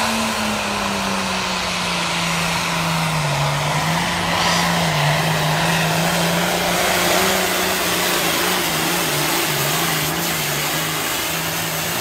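Hot farm class diesel pulling tractor at full throttle, pulling a weight-transfer sled down the track. Its engine note is loud and steady, dipping a little in pitch about three seconds in and wavering after.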